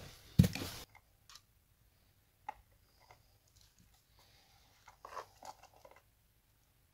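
A single thump about half a second in, then sparse light clicks and rustles, a cluster of them around five seconds in, as the electrical cables and a plastic socket faceplate are handled.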